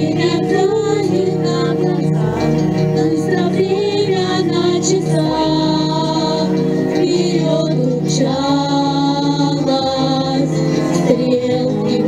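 A song with a female voice singing over steady instrumental accompaniment.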